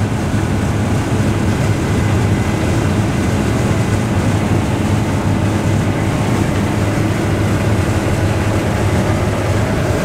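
Case IH combine harvester heard from inside its cab, running steadily while harvesting wheat: a constant engine and threshing drone with a strong low hum, the engine at about 2100 rpm under roughly 70% load.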